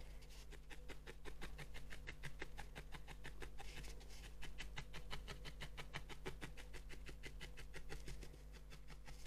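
Felting needle stabbing again and again through wool roving into a foam felting pad, a fast, even train of soft punches at about five a second. The deep stabs are firming the wool into a solid body shape.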